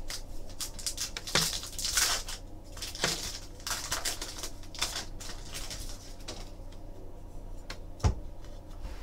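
A foil trading-card pack being torn open and its cards handled: bursts of crinkling and papery rustling, then scattered light clicks, with one sharp click near the end.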